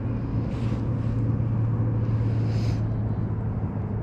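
Steady low hum over a rumbling background noise, with two soft brief hisses, about half a second and two and a half seconds in.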